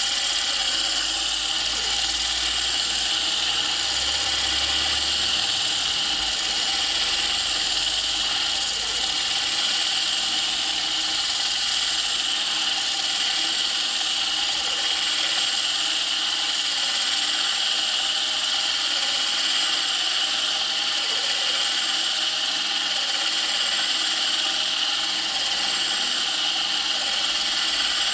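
Drill spinning a wet diamond core bit that grinds steadily through thick 20 mm porcelain tile: a continuous, even, high-pitched grinding with no let-up.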